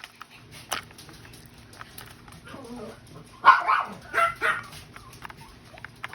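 A dog barking or yipping three times in quick succession, about halfway through, the first bark the loudest. Sharp clicks of a plastic capsule being handled and opened come before it.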